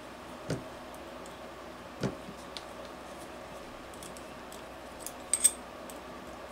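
A few light knocks and clicks of small metal model-engine parts and a hand tool being handled during carburettor removal: soft taps about half a second and two seconds in, then a quick pair of sharper metallic clicks a little after five seconds.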